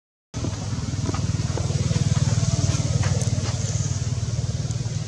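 A small engine running steadily, a low rumble with a fast, even pulse that starts after a split-second gap, with a few faint clicks over it.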